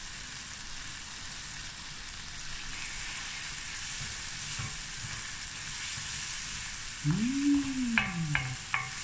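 Onion, garlic and ground spices frying in oil in a stainless steel pan, a steady sizzle while a wooden spoon stirs the masala through; this is the spices being cooked in the oil. Near the end a person's voice hums briefly, and the spoon ticks against the pan three times.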